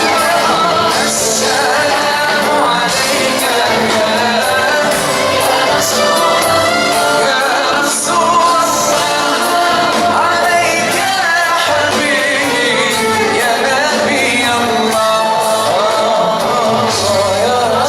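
Music with a vocalist singing a wavering, ornamented melody over steady accompaniment.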